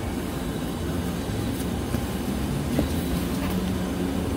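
Steady low rumble of outdoor background noise, with a couple of faint soft taps.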